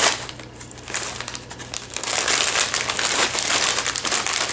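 A plastic chip bag of Rancheritos corn chips crinkling as it is handled and squeezed, loud at first, easing off briefly, then crackling densely again from about two seconds in.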